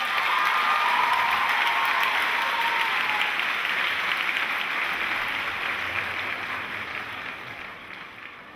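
Theatre audience applauding, dying down over the last few seconds.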